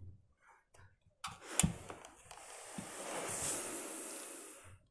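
Hose-fed steam iron giving a burst of steam: two sharp clicks, then a hiss of about three seconds that swells and fades out near the end.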